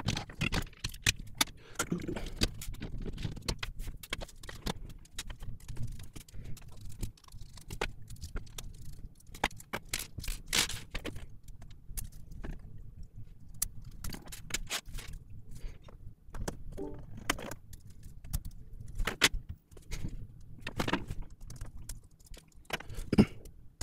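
Small plastic and metal parts of a game controller's trigger frame clicking and rattling as it is taken apart by hand, in many irregular sharp clicks over a low steady hum.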